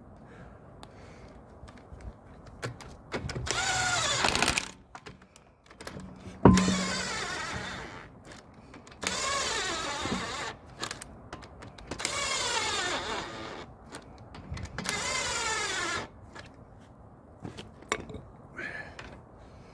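Impact wrench running in five short bursts, the pitch falling through each burst as it spins a wheel bolt down and tightens it, with a sharp metallic knock between the first and second bursts.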